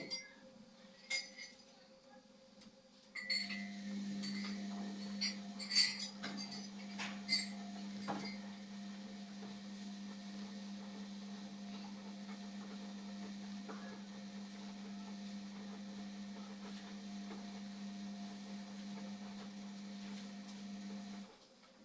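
Indesit washing machine running: a steady low hum starts abruptly about three seconds in and cuts off shortly before the end. Light clicks and clinks come during the first few seconds.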